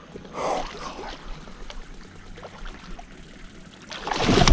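Water splashing as a hooked tarpon thrashes at the surface: a short splash about half a second in, and a louder, longer one near the end.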